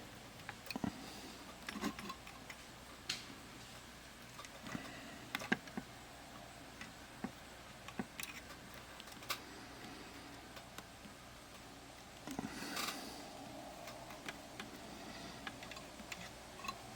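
Scattered light clicks and taps of small tools and parts being handled at an electronics workbench, with a short rustling scrape about twelve seconds in.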